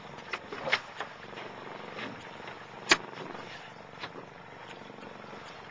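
Steady rushing noise aboard a small boat at sea, with several sharp knocks, the loudest about three seconds in.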